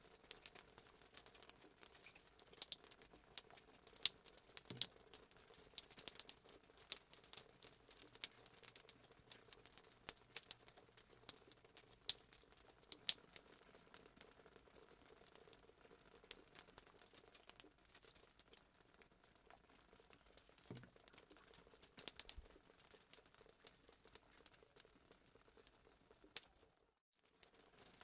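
Fireplace sound effect: a wood fire crackling and popping in quick, irregular snaps over a faint hiss. The sound cuts out briefly about a second before the end.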